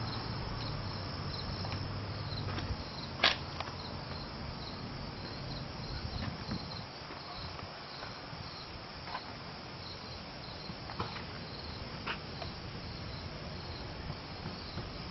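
Crickets chirping in a steady, evenly pulsed high trill. A low hum runs under the first three seconds, and there are a few short clicks, the loudest about three seconds in.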